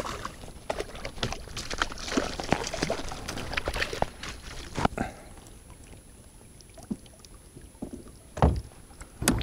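Hooked speckled trout splashing at the surface beside a kayak while it is netted, water sloshing around it. The splashing dies down after about five seconds, then a few light knocks and a dull thump near the end.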